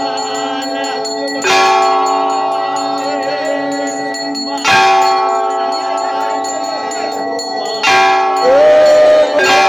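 Large temple bell struck about every three seconds during an aarti, each stroke ringing on until the next, with voices singing along.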